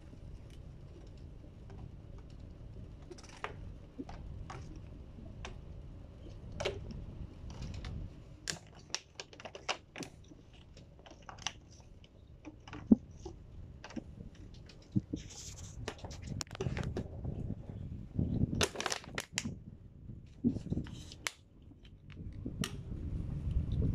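African grey parrot's beak biting and working at the plastic screw cap of a water bottle: irregular sharp clicks and plastic crackles, thicker and louder in the second half.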